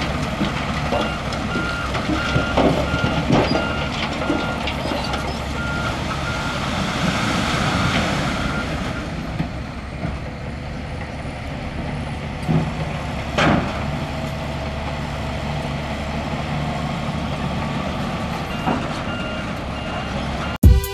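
Heavy diesel construction machine running, its reversing alarm beeping in a steady series of short tones while it backs up, with a few heavy clanks. The beeping stops partway through and returns briefly near the end.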